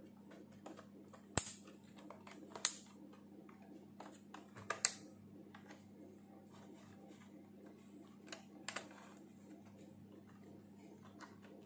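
Plastic snap clips of a laptop's bottom cover clicking loose as the cover is pried open with a flat-blade screwdriver, with faint scraping between. There are about six sharp clicks, the loudest about a second and a half in and near five seconds.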